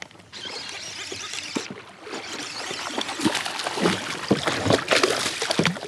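A small hooked bass thrashing and splashing at the surface as it is pulled toward a kayak: a busy run of short water splashes that grows more frequent about two seconds in.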